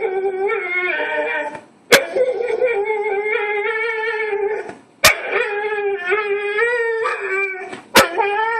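A dog making long, wavering whining howls: three drawn-out calls of about three seconds each, separated by brief pauses. It is complaining about a bone that another dog is lying next to.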